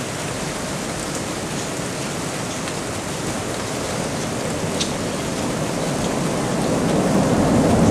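Steady rain, an even hiss with a few drops ticking. A low rumble swells in over the last couple of seconds.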